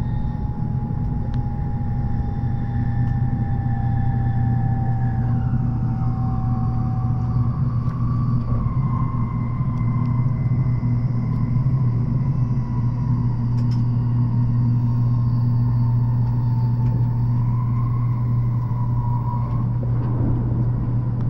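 Steady low rumble of an N700S Shinkansen running at speed, heard inside the passenger cabin. Over it sits a faint electric motor whine that slowly falls in pitch, as the train begins to slow for its next stop.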